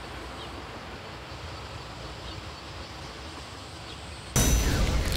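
Steady outdoor background with a low rumble and faint short chirps. Near the end a sudden, much louder burst of noise cuts in and keeps going.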